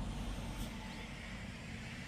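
Seaside ambience: a steady low rumble of wind and distant surf, with faint bird chirps now and then.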